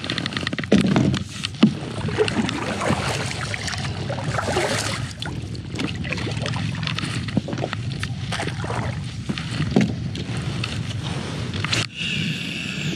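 A kayak being paddled: the paddle blades dip and splash through the water, with a few sharp knocks along the way.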